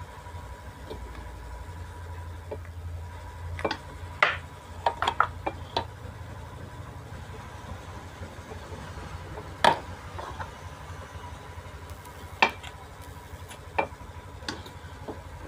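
Scattered sharp clicks and taps of small metal tools against an amplifier circuit board while a protection diode is desoldered and pulled out: a quick cluster of clicks about four to six seconds in, then single taps spaced a few seconds apart, over a low steady hum.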